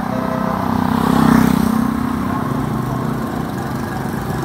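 Motorbikes passing along a street, one engine swelling to its loudest about a second in and then fading, over a steady traffic hum.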